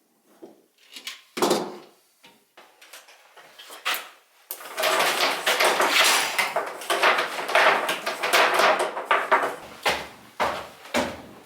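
Irregular knocks and clatter of things being handled, with about five seconds of dense, rapid rattling in the middle and a few hard knocks near the end.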